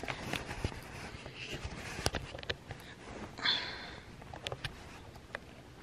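Quiet handling noise: scattered light clicks and taps of fingernails and press-on nails, with a short sniff about three and a half seconds in.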